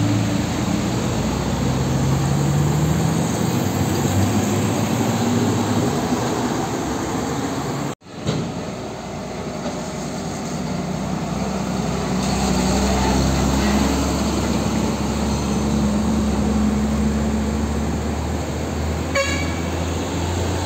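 Diesel truck engines passing at low speed. First a Hino fuel tanker pulls away with its engine note rising. After a sudden cut, an older cab-over tractor unit hauling a flatbed trailer runs steadily past, with a brief high-pitched toot near the end.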